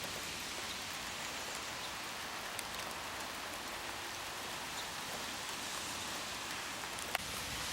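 Steady rain falling, an even hiss with a couple of faint sharp taps.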